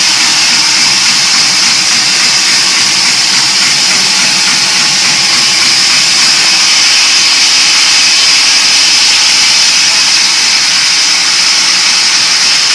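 Horizontal band saw running steadily: a loud, even hiss with a low hum beneath it.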